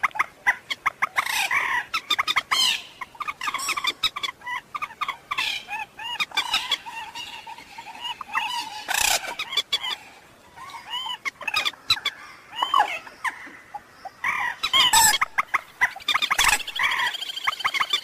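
Common moorhen calling: many short, sharp notes, some rising and falling, delivered in quick bunches with brief pauses between them.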